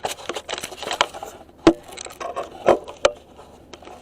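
Handling noise: a series of clicks, knocks and rubbing as objects are moved and set down on a workbench, with sharper knocks about a third of the way in and again past the halfway mark.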